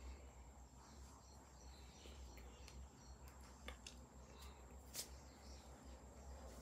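Near silence: a low steady hum with a few faint clicks, the sharpest about five seconds in.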